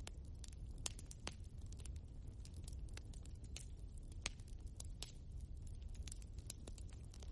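Burning logs in a fireplace crackling, with frequent irregular sharp snaps over a steady low rumble of the fire.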